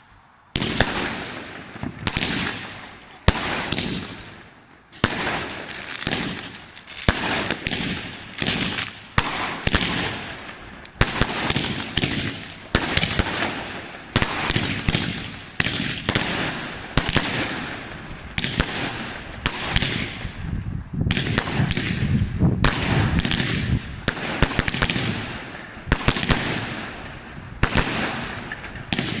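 Fireworks from a homemade finale board firing in a rapid barrage: one sharp bang after another, each trailing off in a crackle. The bursts come thicker and heavier from about two-thirds of the way in.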